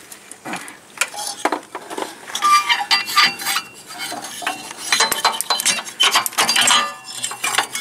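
Metal clinking and knocking in an irregular series: a loosened metal plate under a riding mower's deck, freed of its bolts, being lowered and worked by hand against the surrounding metal parts.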